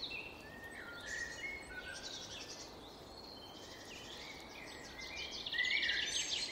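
Several songbirds chirping and trilling over one another, growing louder about five and a half seconds in.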